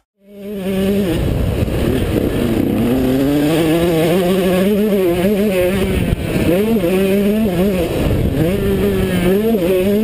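Two-stroke motocross bike engine heard from on the bike, revving up and dropping back again and again as the rider accelerates and shifts through the gears. It fades in during the first half-second.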